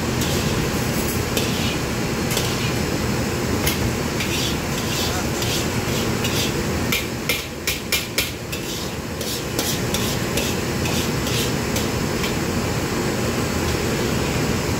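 Metal ladle scraping and knocking against a wok while stir-frying rice, irregular strikes throughout with a quick run of knocks about seven to eight seconds in, over a steady low background rumble.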